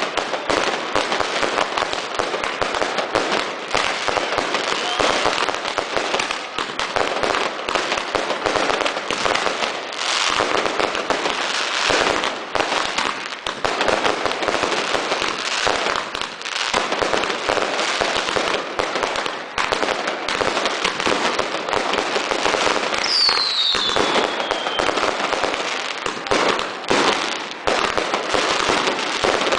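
New Year fireworks going off in a dense, continuous barrage of rapid crackling and popping bangs. A single whistle falls in pitch about two thirds of the way through.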